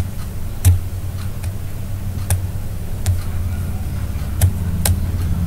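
Mouse clicks at a computer, about six short sharp clicks at irregular intervals, over a steady low hum.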